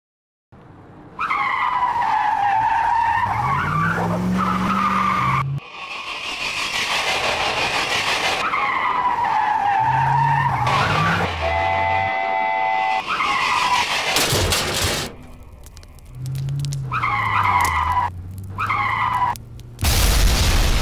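Dubbed-in car chase sound effects: repeated tyre squeals over engines revving up and down, with a short steady tone near the middle. A loud explosion blast hits near the end.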